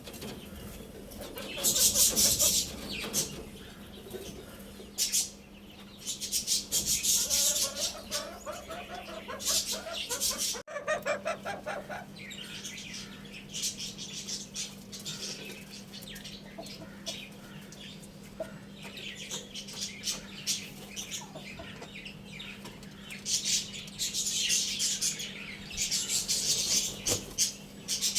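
Chickens clucking, with repeated bursts of wing flapping and a rooster crowing about eight seconds in, over a steady low hum.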